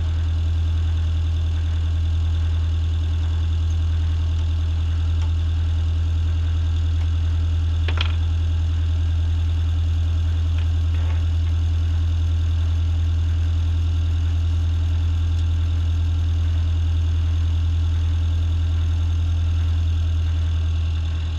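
Motor cruiser's inboard engine running steadily at low revs, a constant low hum. One short click about eight seconds in.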